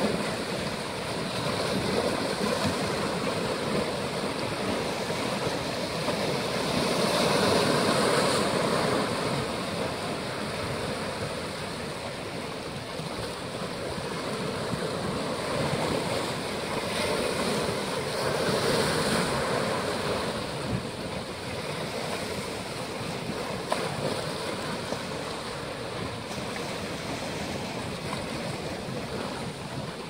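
Small Caspian Sea waves washing and breaking over rocks at the shoreline, a steady surf noise that swells louder twice, about a quarter and two-thirds of the way through.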